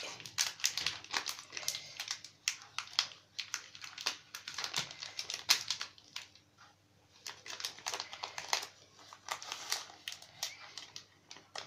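Thin polythene sheet crinkling in irregular crackles as it is handled and lifted at the edge, with a short lull about six seconds in.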